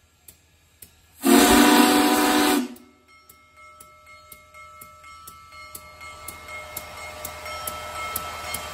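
Union Pacific Big Boy 4014 steam locomotive whistle sounding one loud blast of about a second and a half, about a second in. Then the locomotive's bell rings steadily with regular strokes, over a hiss of steam that grows louder as the engine starts to move off.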